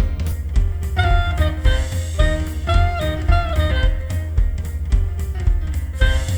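Swing jazz track: a melodic lead line moving in quick notes over a drum kit and a walking low bass.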